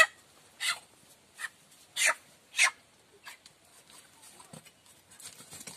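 Feathers being ripped out of a dead chicken by hand: six quick tearing pulls at an even pace in the first half, then fainter rustling as the plucking goes on.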